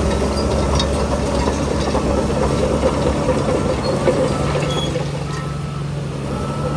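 Heavy earthmoving machinery running steadily, its diesel engine note shifting partway through, with a few scattered clicks and rattles.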